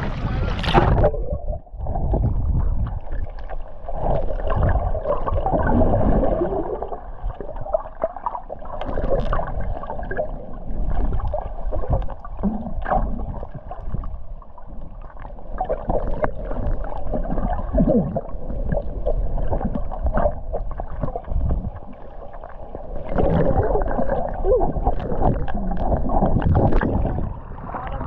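Muffled sloshing and gurgling of sea water as the camera bobs at the surface and dips under the waves, swelling and falling unevenly.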